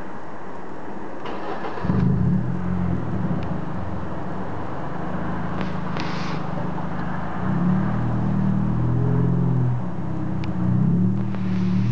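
Ford Focus 1.6 petrol engine starting about two seconds in, then idling through an exhaust with the rear silencer opened up and the centre silencer removed, a deep rumble that rises twice with light blips of the throttle.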